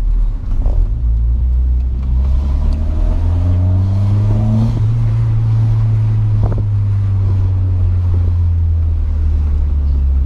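Turbocharged 1.6 GA16DE engine of a B13 Nissan Sentra on the move, a steady low drone. Its pitch rises as the car accelerates from about two seconds in, then it settles to an even cruise.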